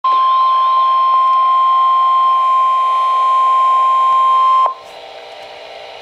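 NOAA Weather Radio 1050 Hz warning alarm tone, one loud steady high tone coming through a Midland weather radio's speaker, which signals that a warning (here a flood warning) is about to be broadcast. It cuts off suddenly about four and a half seconds in, leaving a low broadcast hiss.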